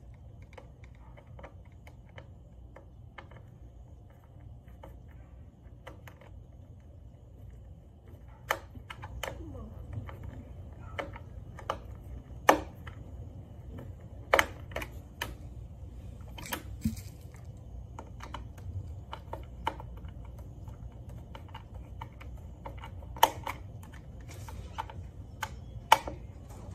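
Plastic parts of a Ryobi cordless wet/dry vacuum being handled and fitted together during assembly: scattered light clicks and taps with a handful of sharper knocks, over a steady low hum.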